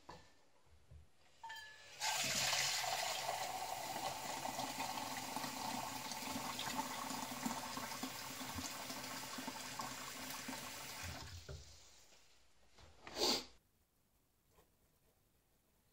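Kitchen tap running into a small stainless steel cup: a steady rush of water for about nine seconds that fades as the tap is shut off. About a second later comes one short, loud knock.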